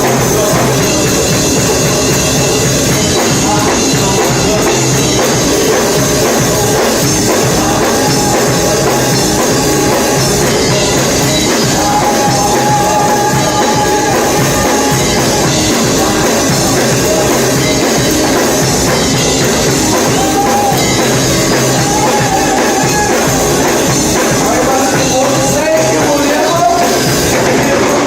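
Live gospel worship music from a church band with drum kit, with singers holding long notes over it.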